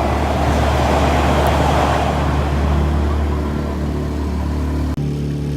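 Motorboat engine running steadily under a rush of water and wind. Near the end the sound cuts abruptly to a steadier engine hum with much less rush.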